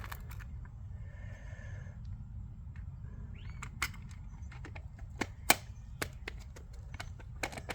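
Scattered plastic clicks and taps from the parts of a VHS cassette shell being handled and fitted back together, over a steady low hum. The sharpest click comes about five and a half seconds in, and several quick clicks follow near the end.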